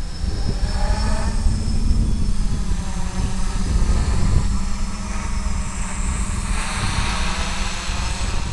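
Small electric FPV drone's motors and propellers buzzing steadily, their pitch sliding up and down as the throttle changes.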